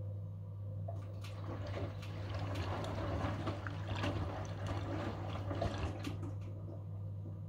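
Front-loading washing machine on its final rinse: about a second in the drum starts turning, tumbling the shirts through the rinse water with a sloshing, splashing wash, which dies away near the end. A steady low hum runs underneath.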